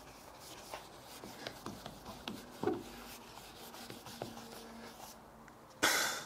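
A cloth wetted with nitro thinner is rubbed and wiped over a plastic headlight lens to remove sticky residue, making small scratchy rubs and ticks. Near the end there is a brief, louder rustle as the cloth is handled.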